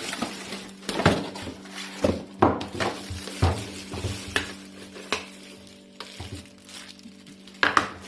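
Clear plastic packaging bag crinkling and rustling as a wrapped pop-up toaster is handled and lifted out of its box, with irregular sharp crackles and knocks against the cardboard.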